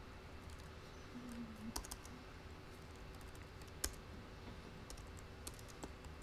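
A few scattered key clicks on a laptop keyboard, the sharpest about four seconds in, over a low steady room hum.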